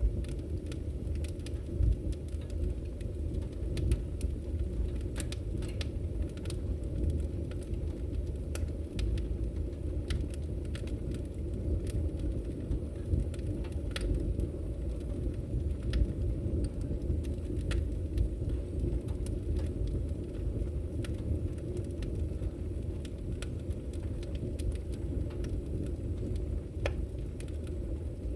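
Campfire crackling: a steady low rush of burning with scattered sharp pops and snaps throughout.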